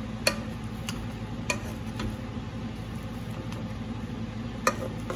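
Metal potato masher pressing soft boiled potatoes in a pan and knocking against the pan's bottom: four knocks about half a second apart, then one more near the end, over a steady low hum.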